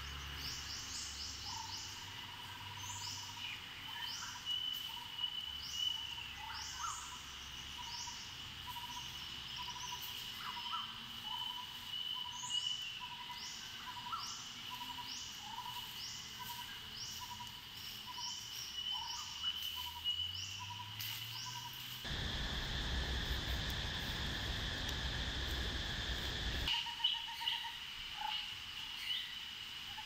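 Several small forest birds calling, with many short quick chirps and whistles over a steady high tone and a low note repeated about once a second. Near the end, about five seconds of loud rushing noise drowns them out, then the birds return.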